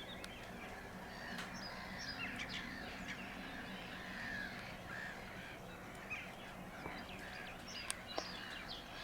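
Many birds calling at a distance, a busy mix of short chirps and harsh caw-like squawks. A few sharp clicks stand out near the start and near the end.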